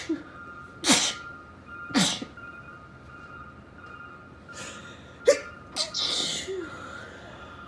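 Sneezing fit: two sharp sneezes about a second apart, then after a pause another sharp sneeze, a smaller one and a longer breathy blow.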